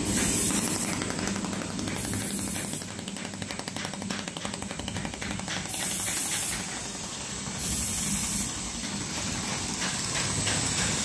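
Laser spot welding machine running with a steady hiss, with a fast run of fine ticks for a few seconds in the middle, typical of pulsed laser spot welds on nickel strip.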